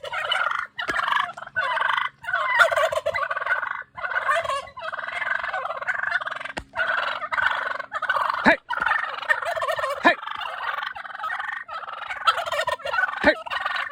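Wild turkey toms gobbling over and over, one rattling gobble running into the next, with a few short, sharp falling calls among them. The toms are riled up and aggressive in the breeding season.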